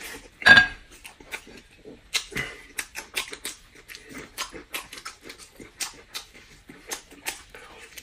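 A man chewing a steamed bun with wet lip-smacking, many short sharp clicks and smacks in quick succession. About half a second in there is one short, loud, high-pitched sound.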